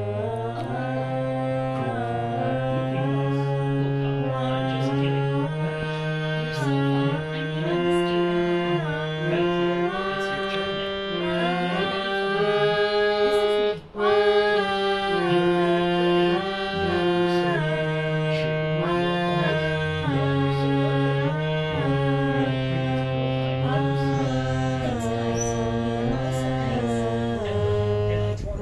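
Harmonium played: a slow melody of held reed notes moving in steps over a sustained lower note, with a brief break about halfway through.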